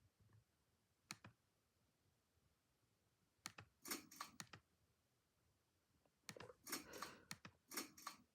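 Near silence broken by faint, sharp clicks: a single click about a second in, then two short clusters of rapid clicking, one around the middle and one near the end.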